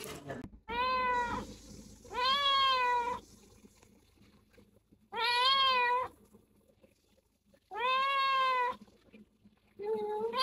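Kitten meowing repeatedly: five loud meows about a second long each, one every two to three seconds, each rising a little and then falling in pitch.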